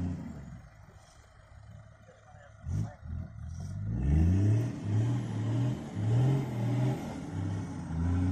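A four-wheel-drive engine revs up about four seconds in, after a quieter stretch broken by a single knock. The revs then keep rising and falling in short repeated pulses.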